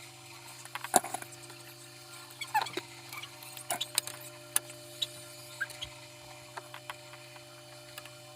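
Irregular clicks and knocks of small hard parts being handled and tapped while an electric fan is worked on, the sharpest knock about a second in, over a steady low hum.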